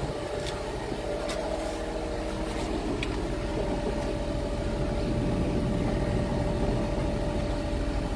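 Tractor engine idling steadily with a constant whine over it, and a few light metallic clicks as the loader wagon's knife bank is handled.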